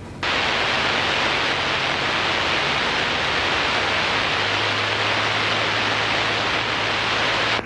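Aircraft radio static on the headset audio: a loud steady hiss that starts abruptly and cuts off sharply just before a radio call comes through.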